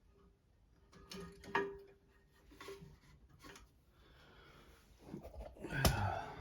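Light clicks and knocks from working a toilet tank's replacement flush lever and lift chain, with a louder knock near the end.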